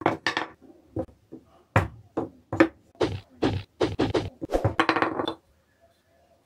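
Lengths of wooden branch knocking against a wooden workbench as they are handled and set down: an irregular run of sharp wooden knocks that stops about five and a half seconds in.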